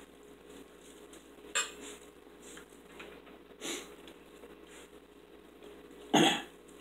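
Forks clinking and scraping on dinner plates while eating, a few light separate clinks, with one louder short sound near the end.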